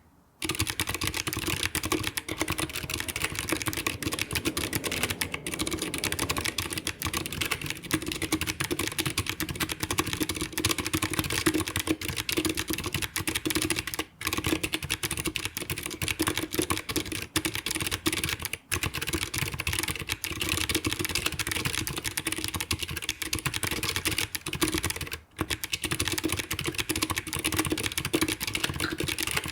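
Fast continuous typing on a Keyboardio Atreus mechanical keyboard, its Kailh Silent Box Brown letter switches giving soft, muted clacks mixed with clickier Box Brown space and modifier keys. The typing pauses briefly three times.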